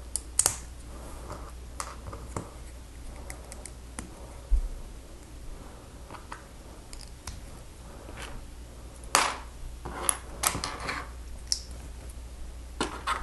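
Plastic Lego pieces being handled and snapped together: scattered small clicks and rattles, with a busier run of clicks around nine to eleven seconds in.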